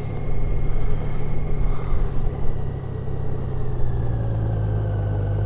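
Motorcycle engine running steadily as the bike rolls along, a low, even drone.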